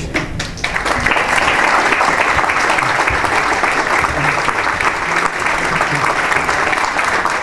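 Audience applauding, the clapping swelling within the first second and then holding steady.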